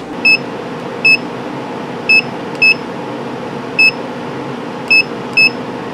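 Laser cutter control panel (Leetro MPC6515) beeping at each button press: seven short high beeps at irregular intervals as the menus are stepped through, over a steady machine hum.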